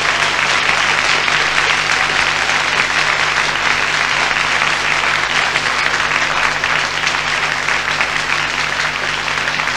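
Audience applauding steadily after a song, a dense even clapping that eases off slightly toward the end.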